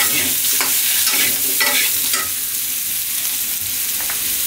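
Potato pieces and green chilies sizzling in oil in a stainless steel wok, stirred with a metal slotted spatula that scrapes the pan about five times in the first two seconds, then a steady sizzle.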